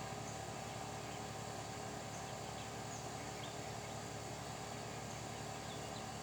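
Steady outdoor ambient noise with a constant low hum and an even hiss, and a few faint, short high chirps scattered through it.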